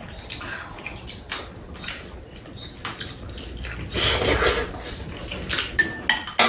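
Two people slurping and chewing stir-fried noodles, with chopsticks clicking against the bowls and tray. The loudest slurp comes about four seconds in, and a few sharp clicks follow near the end.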